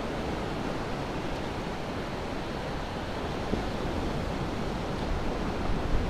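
Surf breaking and washing up a sandy beach: a steady rushing wash of waves.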